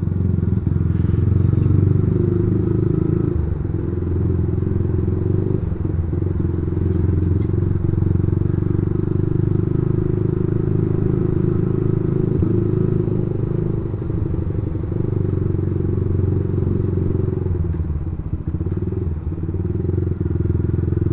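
Motorcycle engine running steadily while riding, a continuous low drone with only small rises and dips in engine speed.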